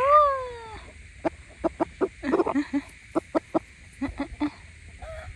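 Chickens clucking: one drawn-out call that rises and then falls in pitch at the start, then a run of short, separate clucks.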